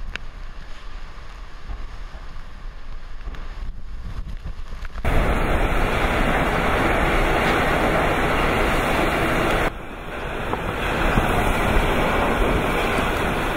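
Typhoon-force wind and heavy rain blowing hard, with wind buffeting the microphone. The noise jumps suddenly louder about five seconds in, drops briefly near ten seconds and then builds again.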